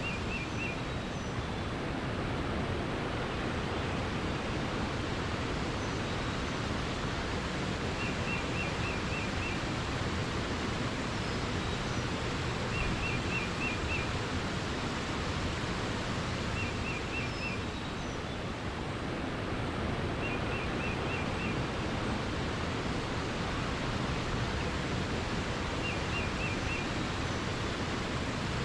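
Steady rush of running water, with a small bird repeating a short phrase of four or five quick high notes six times, roughly every four to five seconds, and a few fainter, higher chirps in between.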